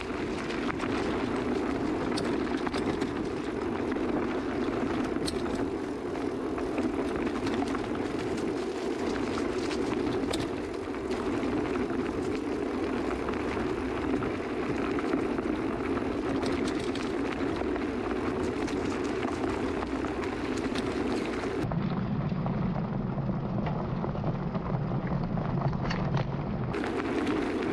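Steady rushing rumble of wind and knobby tyres rolling over a dirt trail, picked up by an action camera mounted on a mountain bike's chainstay, with scattered light ticks and knocks. Near the end the noise turns deeper and duller for several seconds, then returns.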